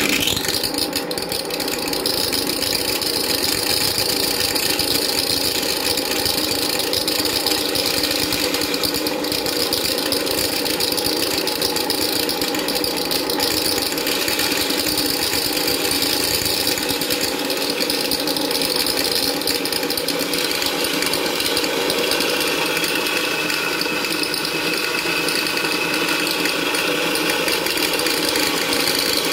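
Portable electric dry mill grinder switched on and running steadily, a motor whine with a metallic rattle from its steel grinding plates. The plates are set so they just touch.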